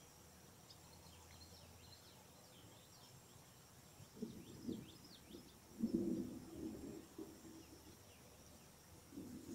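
Small birds chirping: a scatter of short, high chirps, each falling in pitch, over a faint steady background hiss. From about four seconds in come low muffled bumps, the loudest about six seconds in.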